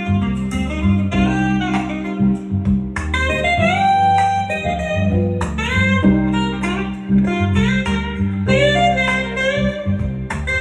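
Smooth-jazz instrumental: a saxophone melody with bending, sliding notes over guitar and a steady bass line.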